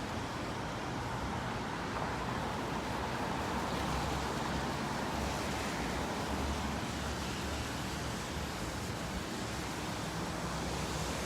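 Steady city street noise: an even hiss of traffic passing on the road.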